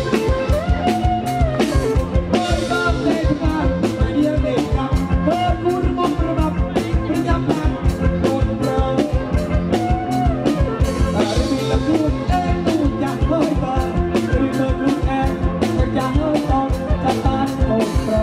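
Live kantrum band music: a drum kit keeps a quick, steady beat under a gliding melody line.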